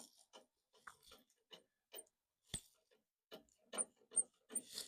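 Irregular sharp clicks and light ticks, about two a second, from hand work with a screwdriver and screws on a pickup's park light and headlight bezel.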